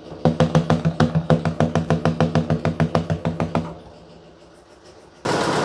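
Ford 6.8-litre gasoline V10 running rough with a rapid, even knocking beat, about nine a second, over a steady low drone: the shake of a cylinder 4 misfire. The beat drops away about four seconds in.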